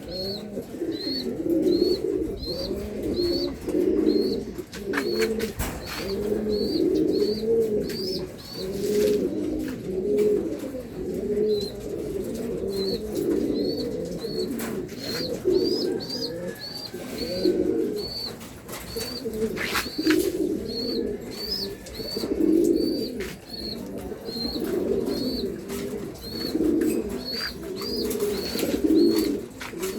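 German beauty homer pigeons cooing over and over, with a thin high peep repeating more than once a second and a few sharp clicks.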